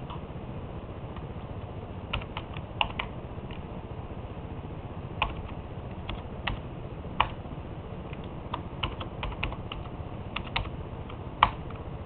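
Keys of an Apple iMac G3 keyboard being typed as a password is entered: an irregular run of short clicks over a steady low background noise, with one louder keystroke near the end.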